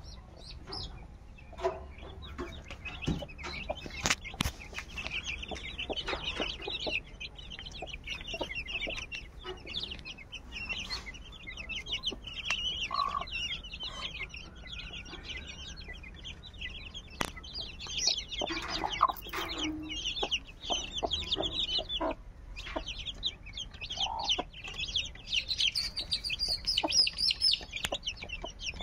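Chicks peeping continuously in high, rapid cheeps, with a hen giving a few short clucks now and then. A few sharp clicks stand out.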